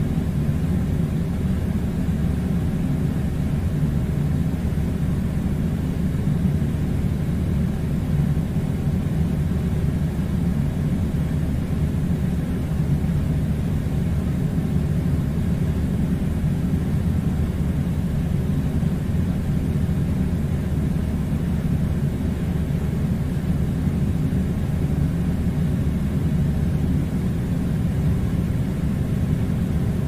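Air conditioner running with a steady low hum that does not change.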